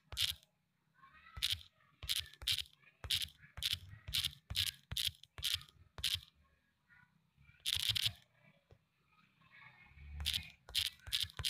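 Typing on a smartphone's on-screen keyboard: a string of short, sharp key clicks, roughly two a second, with pauses of a second or two partway through.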